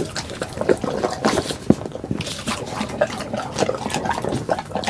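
Pit bull eating, with irregular wet chewing, smacking and slurping sounds.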